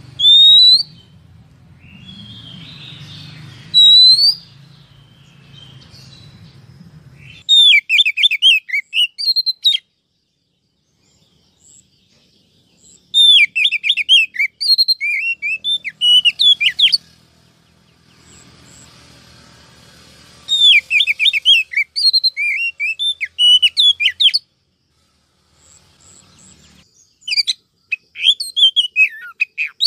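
Female oriental magpie-robin calling: a few single rising whistled notes in the first seconds, then four bursts of quick, twisting chattering notes, each a couple of seconds long with pauses between. These are the female's calls used to rouse males into song.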